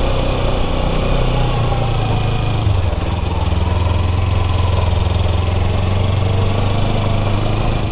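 Kawasaki Ninja 300's parallel-twin engine running at low speed up a steep stone-paved climb, with a steady low hum that gets stronger about three seconds in.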